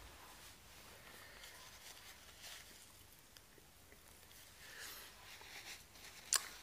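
Quiet small-room tone with a few faint, soft rustles, and one short sharp click about six seconds in.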